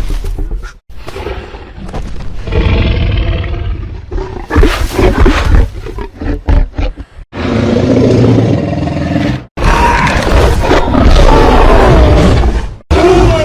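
Film sound design of a Tyrannosaurus: a series of deep roars and growls, cut one after another with abrupt breaks between the calls.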